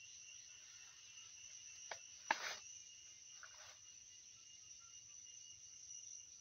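Steady, high-pitched chirring of an insect chorus, with a brief sharp sound a little under two seconds in, a louder short one just after it, and a softer one at about three and a half seconds.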